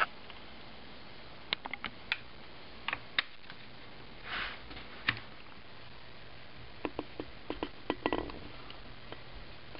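Scattered light clicks and taps from hands on a computer keyboard: single ones through the first half, then a quick run of them near the end. A faint low hum comes in about halfway through.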